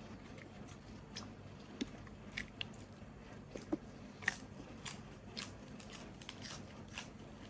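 Close-up chewing and biting of Thai shrimp salad: quiet, scattered crunches and small wet clicks, one slightly louder crunch a little past the middle.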